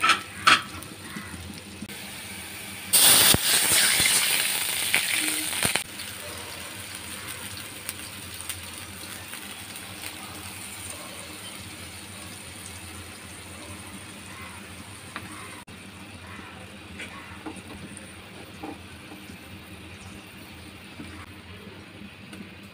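Water poured into a frying pan of pointed gourd and onion in hot oil: a loud hiss for about three seconds, beginning a few seconds in, then the curry simmering quietly with a few light spoon ticks as spice and salt go in.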